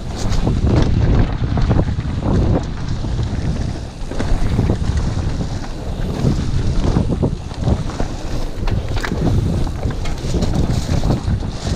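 Mountain bike running fast down a muddy dirt trail: wind buffeting the action camera's microphone over a steady tyre rumble, with frequent short knocks and rattles as the bike hits bumps.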